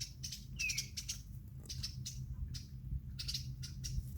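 Small songbirds chirping, a quick run of short high chirps repeating again and again, with one short falling whistle about half a second in; these are the parent birds calling around their fledgling.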